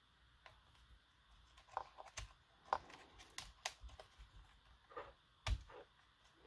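Irregular light clicks and taps of small plastic parts and wire being handled as a cooling-fan wire is threaded through a Traxxas Slash 4x4 RC truck. The sharpest tap comes near the end.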